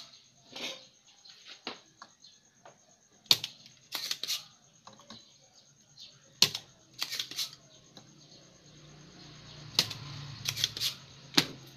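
Scattered sharp clicks and taps from desoldering the degaussing posistor on a CRT TV's power-supply board: a desoldering pump snapping and tools knocking against the board. A faint low hum comes in during the second half.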